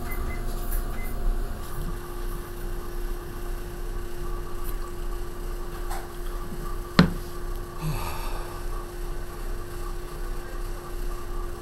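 Steady indoor hum of room tone, one held tone over a low rumble, with a single sharp click about seven seconds in.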